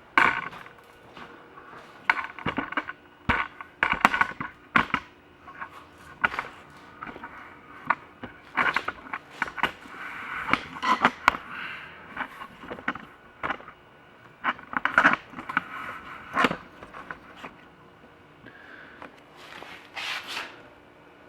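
Irregular clicks, knocks and scrapes of hand work on an ATV, with parts being handled and fitted as the battery is put back in.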